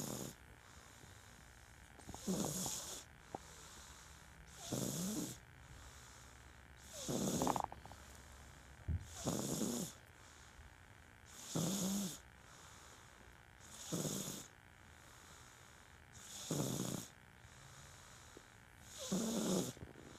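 Loud snoring: a slow, regular rasp on each breath, about one every two and a half seconds, each with a breathy hiss.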